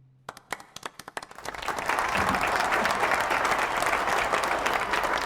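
Audience applause. A few scattered claps at first, swelling within about two seconds into full, steady applause.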